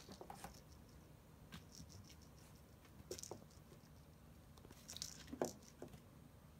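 A kitten batting and pouncing on a feather toy on a mat inside a wire cage: faint, scattered pats, taps and rustles, with a small cluster about three seconds in and the loudest taps near five and a half seconds.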